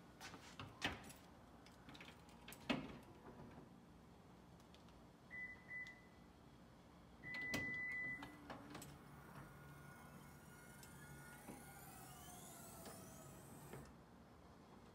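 Two short beeps and then a longer beep from the Lexus RX350's power liftgate. These are followed by the newly replaced liftgate motor running for about five seconds as the liftgate opens: a faint whine whose pitch shifts up and down, stopping shortly before the end. There are two sharp knocks in the first three seconds.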